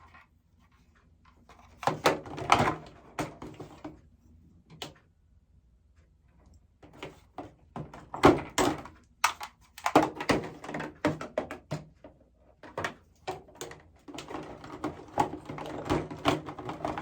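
Ring light and stand parts being handled and fitted together: irregular clicks, knocks and rattles in several clusters with short pauses between them.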